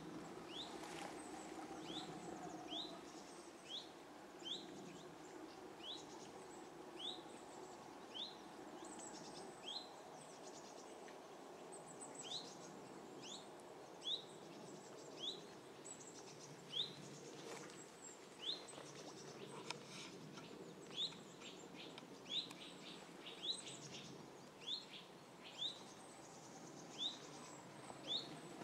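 A small bird repeating a short, rising chirp about once a second, over a faint steady background rumble.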